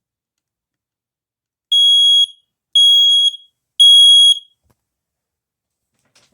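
Household smoke alarm sounding with its test button held down: three loud, identical high-pitched beeps, each about half a second long, a second apart. This is the standard three-pulse evacuation signal.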